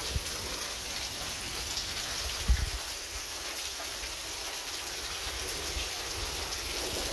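Steady rain falling, pattering on a wet concrete patio, with a brief low thump about two and a half seconds in.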